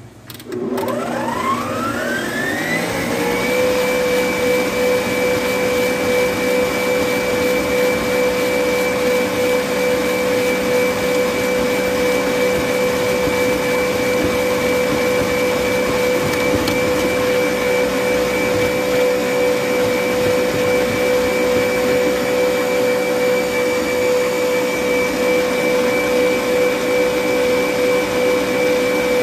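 Electric stand mixer switched on, its motor speeding up over the first three seconds in a rising whine, then running steadily at high speed. The wire whisk is beating a still-grainy egg yolk and sugar mixture in a steel bowl.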